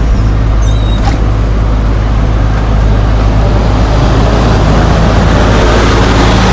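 Bus engine running steadily with road rumble as the bus drives, a deeper engine note coming in near the end.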